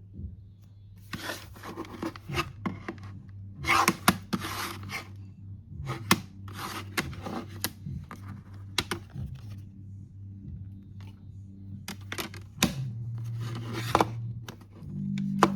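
Packaging being opened by hand: irregular bursts of tearing, crinkling and scraping with sharp clicks, over a low steady hum.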